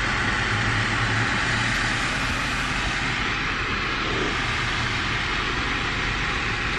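Steady hum and hiss of a car idling, heard from inside the cabin.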